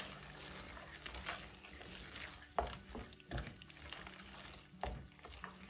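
Wooden spatula stirring thick, sticky banana-jaggery halwa with cashews and almonds in a nonstick pan: soft scraping with a few light knocks against the pan, over a faint steady hum.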